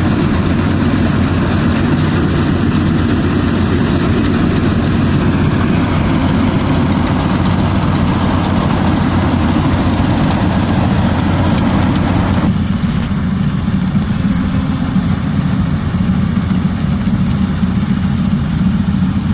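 Yanmar AW82GV combine harvester's diesel engine running steadily with a strong low hum and a noisy mechanical clatter over it. About two-thirds of the way through, the higher clatter cuts out abruptly, leaving the engine's low running note.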